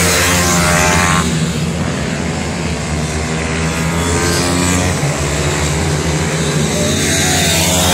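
Several 160 cc pit bike engines racing, their pitch rising and falling as the riders rev up, shift and back off, over a steady low hum.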